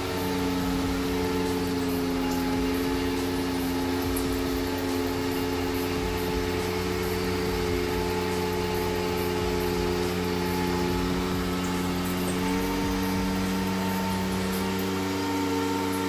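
Ride-on power trowel's engine running steadily as its twin rotors smooth the fresh concrete floor, the engine note shifting slightly about twelve seconds in.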